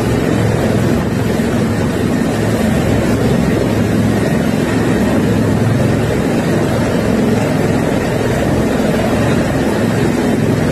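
Helicopter hovering low overhead, its rotor beating steadily over the loud, continuous rush of muddy floodwater.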